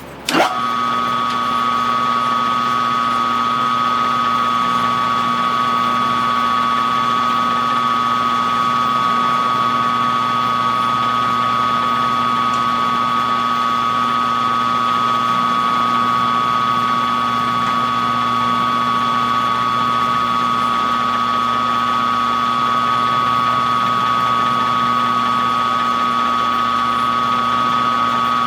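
A small machine tool's motor starts abruptly about half a second in, then runs steadily at high speed with a constant high-pitched whine.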